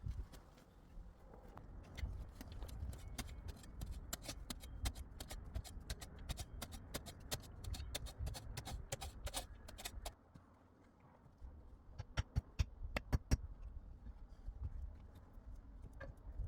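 Rapid sharp clicks and knocks of hard objects, coming thick and fast for several seconds. After a short lull come a few louder knocks.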